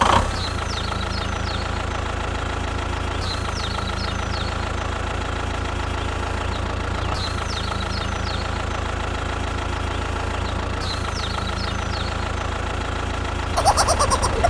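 A vehicle engine idling steadily, with an even low hum and the same pattern coming round every three to four seconds. About a second before the end, a louder, more varied sound cuts in over it.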